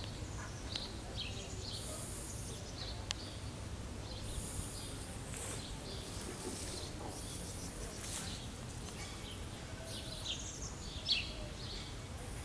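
Outdoor garden ambience: small birds chirping in short, high calls scattered throughout, over a steady low rumble.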